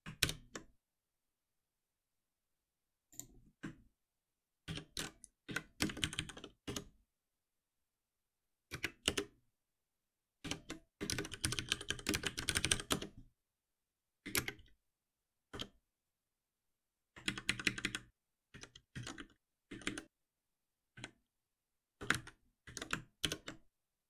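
Computer keyboard typing in short irregular bursts of keystrokes with silent gaps between, including a longer run of fast typing about eleven seconds in.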